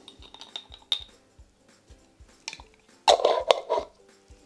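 Small clicks and clinks of a teaspoon and a small glass jar as salt is measured into a blender jug, with a louder scraping rattle about three seconds in.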